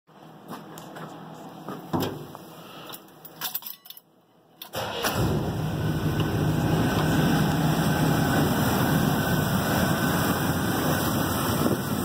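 A few clicks and knocks of a truck door and keys, then about five seconds in the Suburban's carbureted engine starts and settles into a steady idle. The engine has a vacuum leak, which the owner traces to an open hose on the intake's vacuum tree.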